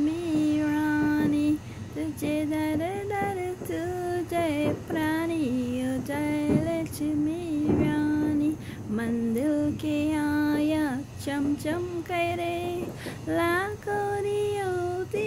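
A woman singing a slow melody in phrases of long held notes that step up and down in pitch.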